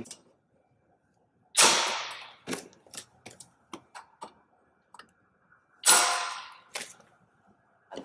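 Bolt cutters shearing through the galvanised steel side wires of a Cablofil wire cable tray: two sharp snaps about four seconds apart, each ringing off briefly, with small metallic clicks between as the cutters are moved and the wire shifts.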